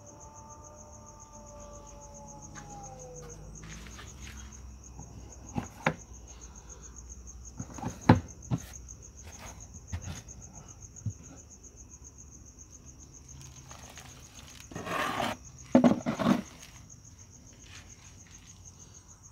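Crickets chirring steadily, with a few sharp knocks and rubbing from a plastic bin lid being handled and lifted. The loudest knock comes about eight seconds in, and a longer scraping burst comes near fifteen to sixteen seconds.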